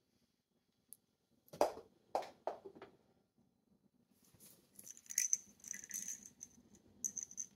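Small cat toy ball hitting a wooden floor with four sharp knocks as it bounces, then, from about four seconds in, a high jingling rattle as it rolls.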